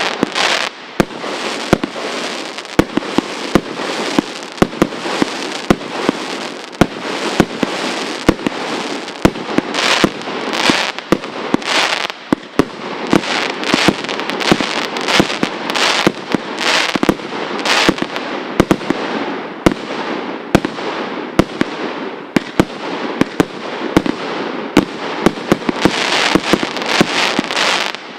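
Aerial firework battery ('Gandalf's Fireworks', SUF10012) firing a continuous barrage: sharp bangs and dense crackling, with louder clusters of bursts every few seconds.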